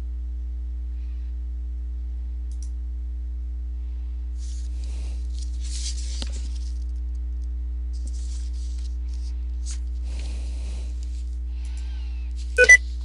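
Steady low hum from the recording setup, with a faint steady tone above it. Faint rustling comes three times, around the middle and later on.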